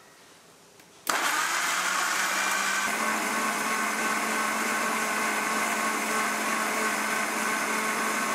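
Electric blender jar switched on about a second in, starting suddenly, then running steadily as it blends grapes, apple pieces, sugar and salt into juice.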